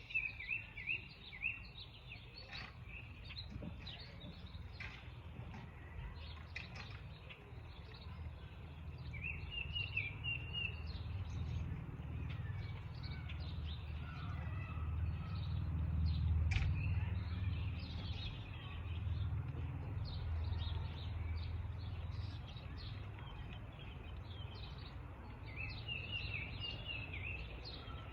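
Wild songbirds chirping and calling, with one bird's quick phrase of notes heard three times. A low rumble swells and fades under them in the middle.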